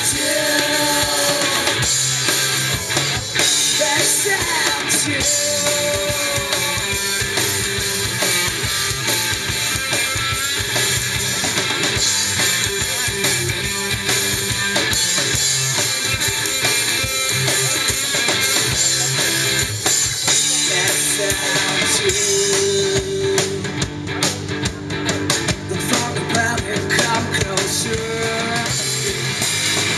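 Live rock music from a guitar-and-drums duo: an electric guitar played through an amplifier, a Pearl drum kit, and a singing voice with a few held notes.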